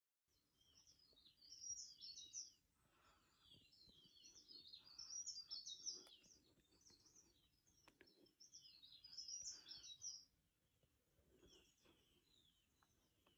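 Faint forest birdsong: quick high chirping phrases in three bouts a few seconds apart, then fainter calls near the end.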